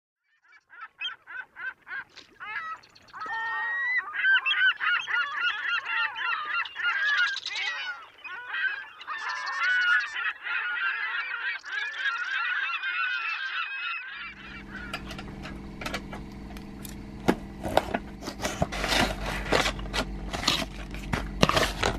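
A flock of birds calling, starting as rapid pulsed calls and building into a dense overlapping chorus that cuts off about fourteen seconds in. After that come a steady low hum and scattered clicks and rustles of a box and its packaging being handled.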